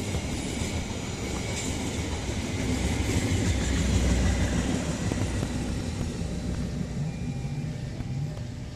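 Rear coaches of a long-distance passenger train rolling past on the rails, a steady rumble of wheels and running gear. It swells about four seconds in as the last coach goes by, then fades as the train clears.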